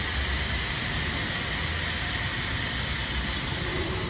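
Car-wash vehicle lift running steadily as it lowers the car, a constant low hum with a hiss over it that begins to die away near the end as the car reaches the floor.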